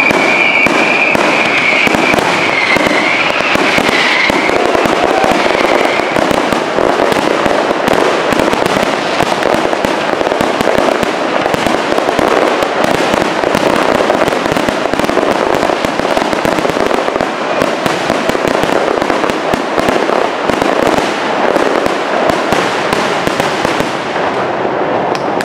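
Aerial fireworks shells bursting in a dense, continuous barrage of bangs and crackling. A wavering whistle sounds over the first few seconds.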